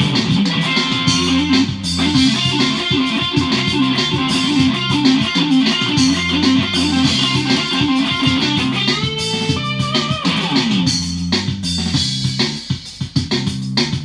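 Stratocaster-style electric guitar playing a fast lead over a backing track of bass and drums, with a held note about nine or ten seconds in. The playing thins out near the end.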